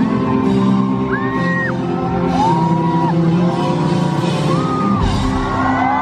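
Live rock band playing held chords, loud in a large hall, with rising and falling whistles and whoops from the audience over the music.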